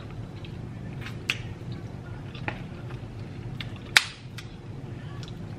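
Crab shells being cracked and snapped apart by hand: several sharp, separate snaps and clicks, the loudest about four seconds in, over a low steady hum.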